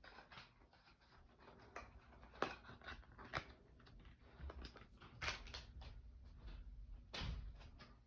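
Faint handling noise: scattered light clicks and taps, with a few sharper knocks spread through.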